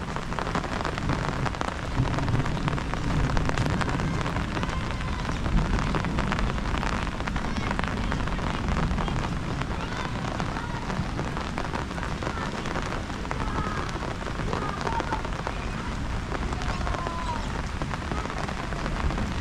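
Heavy rain falling steadily, a dense hiss of drops striking surfaces.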